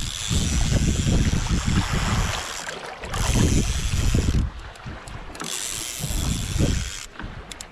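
Wind buffeting a small action-camera microphone on a kayak at sea, a low rumble with a hiss over it, coming in three gusts that start and stop abruptly.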